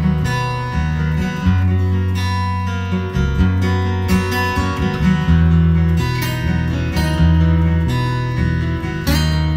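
Background music: acoustic guitar strumming chords over a bass line, with no speech.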